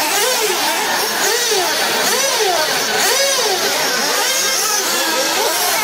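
Several radio-controlled 1/10-scale two-wheel-drive off-road buggies running on a dirt track, their motors whining and sweeping up and down in pitch again and again as they accelerate and brake through the corners.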